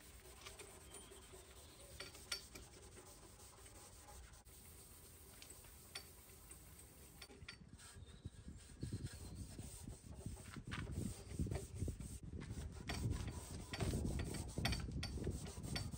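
Cloth and gloved hands rubbing and wiping over a bare-metal BMW E30 Touring tailgate, a rough rubbing noise with scattered clicks. It gets louder and coarser about halfway through.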